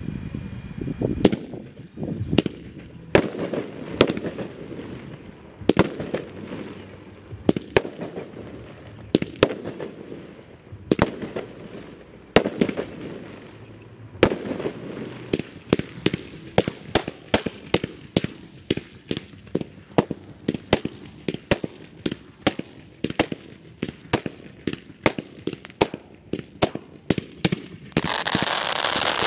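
Fireworks display: sharp firework bangs with echoing tails, about one a second at first, coming several a second from about halfway. Near the end the loud, steady hiss of ground fountains spraying sparks starts.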